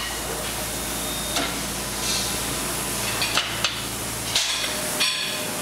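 Electric tube-bending machine running with a steady hum as it bends a steel handlebar tube around its die, with several sharp metallic clanks; the hum stops about four seconds in.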